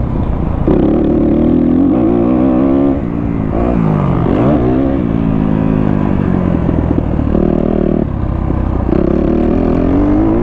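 2023 Kawasaki KX250F dirt bike's single-cylinder four-stroke engine running under riding load on a motocross track, revs repeatedly climbing, holding and dropping, with a quick dip and rise a little before halfway. The rear tyre is spinning badly, a sign of the rear inner tube going flat.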